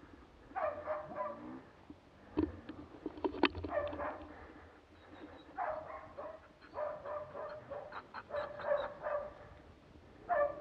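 Moose-hunting dog barking at a moose calf it is holding at bay, in repeated short bursts of several barks every second or two. Two sharp snaps sound between the first bursts.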